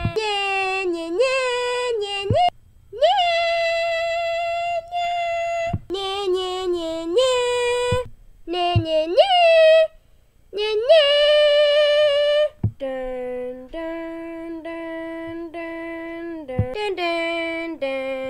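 A high voice sings a wordless melody in long held notes, sliding up into some of them and breaking off briefly a few times.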